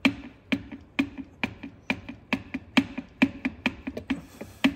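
Rhythmic metallic clunks, about two a second, from a dual-mass flywheel being rocked back and forth by hand to work it off the crankshaft.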